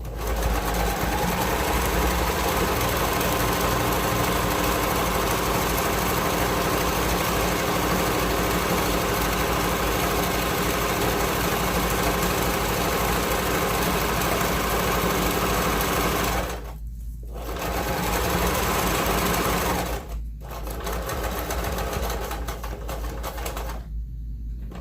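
Electric sewing machine running fast, stitching Velcro onto a fabric panel. It pauses briefly twice in the last third and stops shortly before the end.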